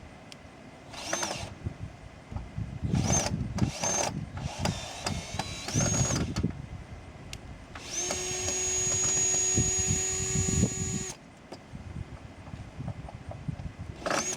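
Power drill driving screws into wood: several short runs, each spinning up to a steady high whine, and one longer steady run of about three seconds a little past the middle.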